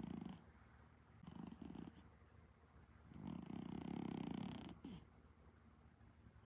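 An Exotic Shorthair cat snoring faintly while asleep, in slow breaths: the end of one snore right at the start, a short one about a second and a half in, and a longer one from about three seconds to nearly five.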